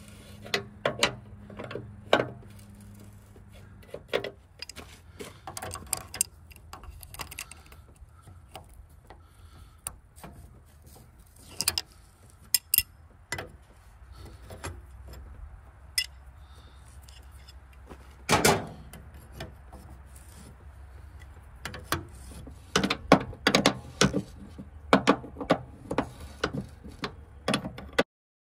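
Wrench clinking and tapping against steel hydraulic line fittings as loosened fittings are worked off a tractor backhoe: a scatter of short, sharp metallic clicks, one louder knock in the middle and a quicker run of them near the end.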